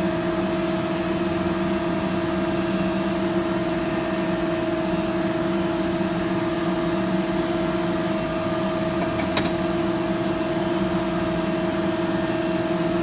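Steady hum of shop machinery, even and unchanging, with a single sharp click about nine seconds in.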